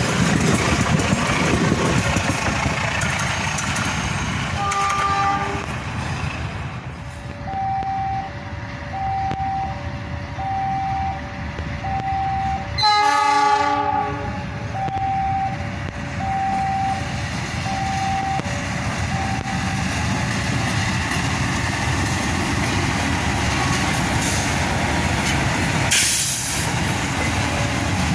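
A passenger train rolling slowly past under a 20 km/h speed restriction for track works, then a fuel tanker train led by a CC 206 diesel-electric locomotive approaching at low speed. About halfway through, the locomotive gives one short horn blast, while an alternating two-note electronic warning tone sounds for about ten seconds. The locomotive's diesel engine grows louder near the end as it draws level.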